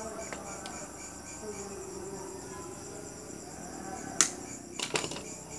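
Pliers snapping on wire: one sharp metallic click about four seconds in, then a few smaller clicks, as the wire for a lure is bent and cut. Insects chirp steadily in the background.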